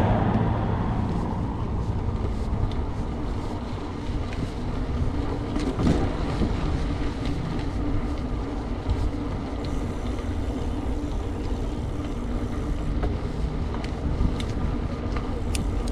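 Steady low rumble of wind on the microphone and rolling noise during a bicycle ride, with a few faint clicks. A louder noise dies away in the first second or so.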